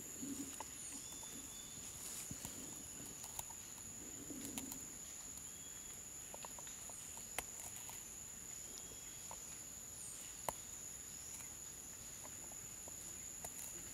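Faint forest ambience: a steady high insect drone with a few short bird chirps, over small clicks and rustles as a live plastic landmine is handled and its spring unscrewed. Two sharper clicks come about 7 and 10 seconds in.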